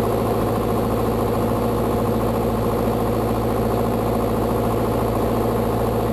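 Beechcraft Sundowner's four-cylinder Lycoming engine and propeller droning steadily in the cockpit on final approach.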